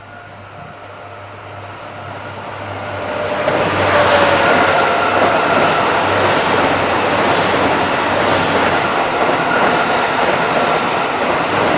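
Freight train approaching and passing close by. The rolling noise of wheels on rail grows louder over about four seconds, then stays loud and steady as the train goes past, with some clatter over rail joints later on.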